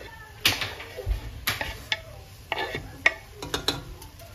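A kitchen utensil scraping and knocking against a wooden cutting board as diced bell peppers are swept off it into a pot: a run of short scrapes and taps.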